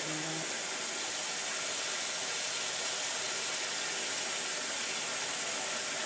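Steady, even hiss with no distinct knocks or clinks.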